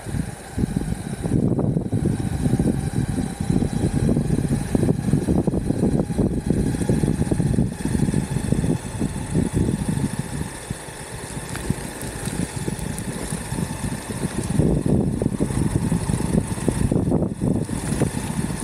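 Electric skateboard rolling on an asphalt road: a continuous rough rumble from the wheels on the road surface that swells and eases, with a faint steady whine above it.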